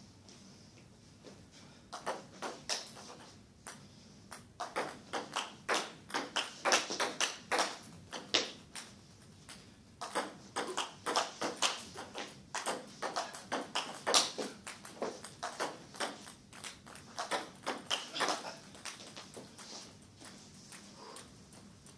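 Table tennis ball clicking back and forth between bats and table in rallies, a quick, even run of sharp clicks that breaks off briefly twice and stops near the end.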